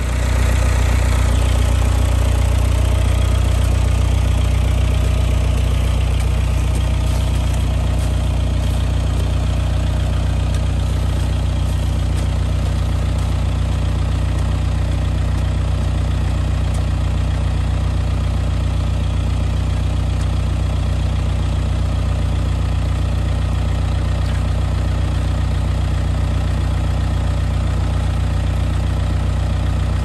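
Lull telehandler's diesel engine idling steadily.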